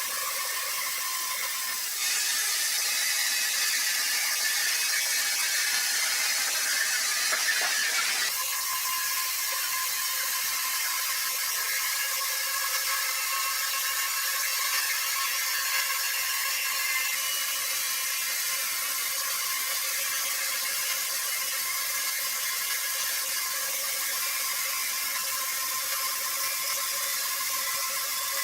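Sawmill machinery running steadily with a whirring mechanical noise, louder for a stretch from about two seconds in, then changing abruptly about eight seconds in.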